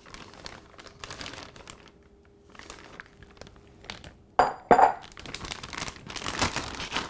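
Plastic zip-top bag crinkling and rustling as marinade is poured in over a pork loin and the bag is handled. Two short, louder sharp crackles come about four and a half seconds in, and the rustling is denser near the end.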